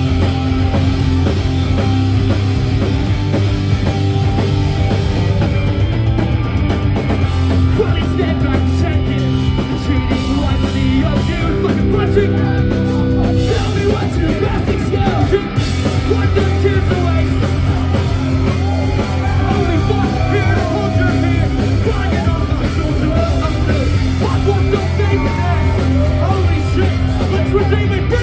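Live punk rock band playing at full volume: electric guitar, bass guitar and drums with a singer over them, heard loud and unbroken from within the crowd.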